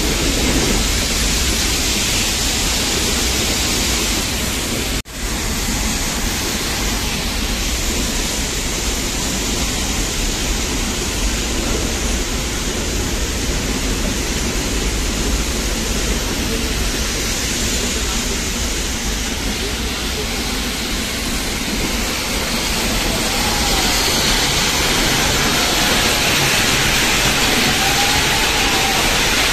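Steady rushing running noise of the Nilgiri Mountain Railway toy train, heard from aboard. It briefly cuts out about five seconds in and grows a little louder near the end.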